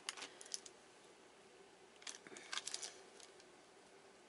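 Faint kitchen handling sounds as butter pats are set into acorn squash halves in a ceramic baking dish: a few light clicks at the start and a short cluster of taps about two seconds in, over a faint steady hum.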